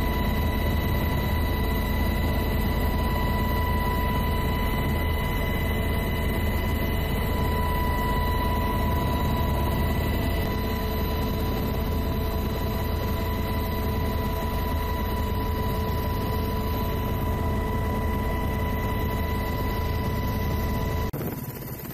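Helicopter engine and rotor noise heard from inside the cabin: a steady low drone with a constant high-pitched whine layered over it. It drops in level at a cut near the end.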